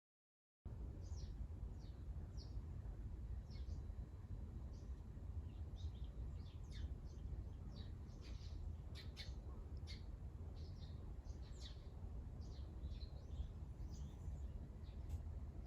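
Sparrows chirping outside an open window, many short chirps in quick, irregular succession, over a steady low rumble.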